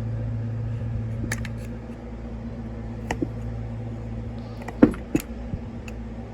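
Scattered light metallic clicks and knocks of tools and chainsaw parts being handled during a teardown, the loudest two near the end, over a steady low hum.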